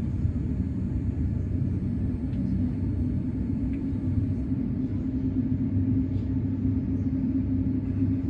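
Steady low rumble of a Boeing 787-9's running engines heard inside the cabin, with a steady low hum that grows a little stronger about five seconds in.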